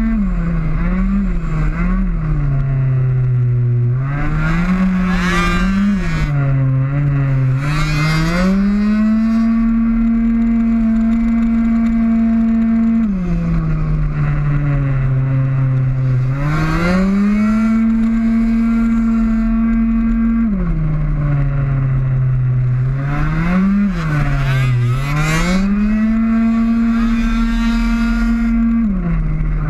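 Two-stroke racing scooter engine at full throttle, heard onboard: it holds one steady high note for long stretches, and the pitch dips and climbs back several times as the rider slows into and drives out of corners. Twice, other racing scooters' engines join in close by, their notes crossing it as they pass.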